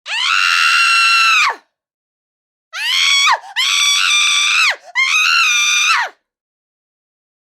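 High-pitched human screaming: one long held scream, then after a short pause three more screams in quick succession, each dropping in pitch as it breaks off.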